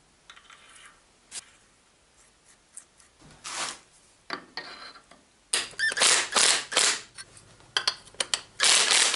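Light metal clicks from parts being handled, then a cordless drill-driver run in several short loud bursts on a toothed sprocket wheel.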